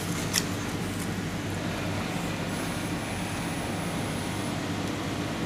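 Steady low hum of room air conditioning, with two light clicks near the start and a faint high whine for a couple of seconds mid-way.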